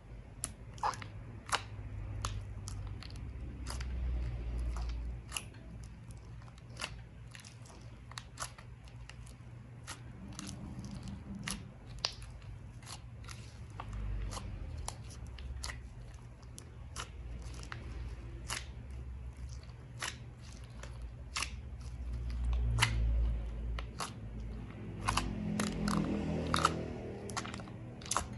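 Slime being kneaded and poked by hand: a run of sticky clicks and crackles over dull, squishy presses. Near the end the pokes give soft puffing pops.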